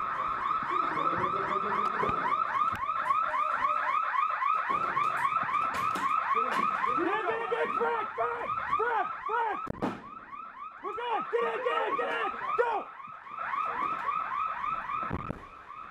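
Electronic alarm sounding a rapid warbling tone that repeats many times a second, joined about halfway through by a slower, lower rising-and-falling sweep.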